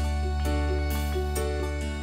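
Campursari band playing an instrumental passage: a keyboard melody of short notes over a held deep bass note, with a few light percussion strikes.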